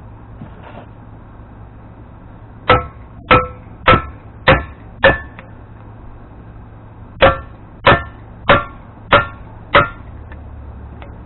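Hammer blows on a race driver, driving a new bearing race into the bore of a Dana 44 front wheel hub. There are two runs of five ringing metallic strikes, about two a second, the first run about three seconds in and the second about seven seconds in. The race is not yet seated.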